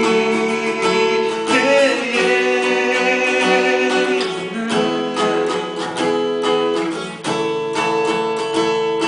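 Background music: an acoustic guitar-led pop song, strummed, with a sung melody in places.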